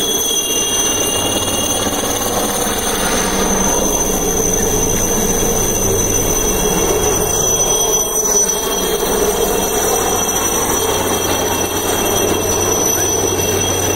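HAL Chetak (Alouette III type) helicopter flying low overhead: a steady high turbine whine over a constant rotor and engine rumble.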